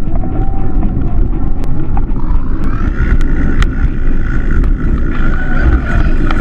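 Wind and road rumble on a handlebar-mounted GoPro as the bicycle rolls along, with repeated sharp clicks and rattles from the mount jolting over bumps.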